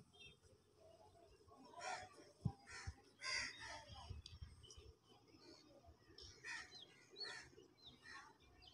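Crows cawing faintly, several separate calls, with a few short high bird chirps about two-thirds of the way through.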